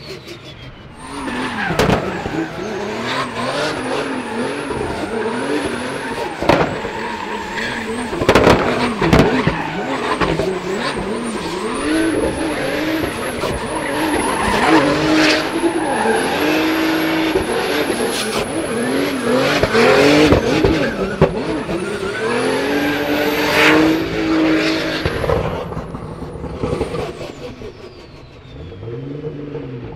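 Turbodiesel drift car on a demonstration run: the engine revs up and down again and again while the tyres squeal and skid, with a high whine above it all. It dies down a few seconds before the end.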